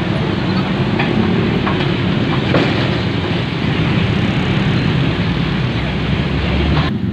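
Heavy vehicle running close by: a steady low engine drone with road noise, which changes abruptly near the end.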